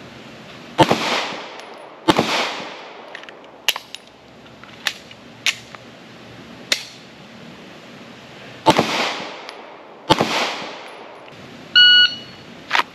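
Four 9mm pistol shots from a Glock 19, in two pairs about a second and a half apart with a long gap between the pairs, each followed by a long echo tail. Fainter sharp cracks fall in the gap. Near the end a shot timer gives a short electronic start beep.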